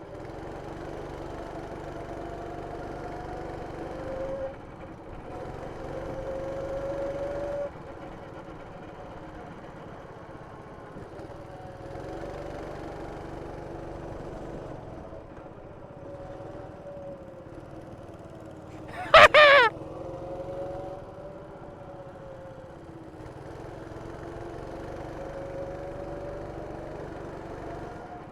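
A go-kart's small engine running at speed, heard from on board, its pitch rising and falling as it accelerates and lifts off through the corners. About two-thirds of the way through there is a brief, loud, high-pitched burst, the loudest sound here.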